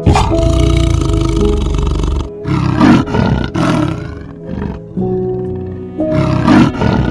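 Loud animal roars in several rough bursts, one right at the start and more in the middle and near the end, over background music with sustained notes.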